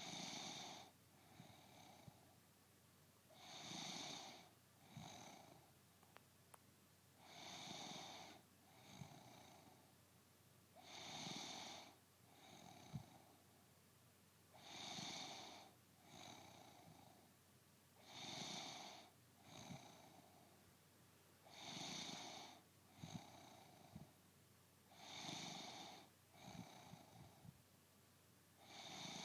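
A woman snoring in her sleep, faint and regular, one breath cycle about every three and a half seconds. Each cycle is a longer, louder snore followed by a shorter, softer one.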